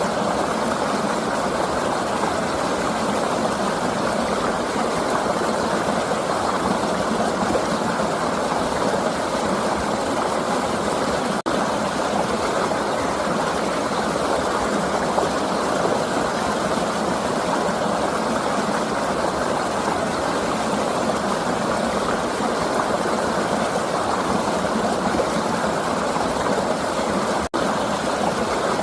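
River water flowing in a steady, even rush. Two momentary dropouts break it, one about eleven seconds in and one near the end.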